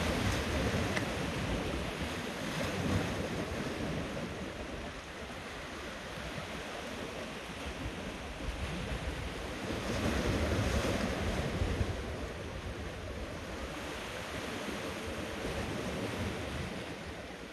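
Sea swell washing in over shoreline rocks, a steady surf noise that surges louder about ten seconds in, with wind buffeting the microphone.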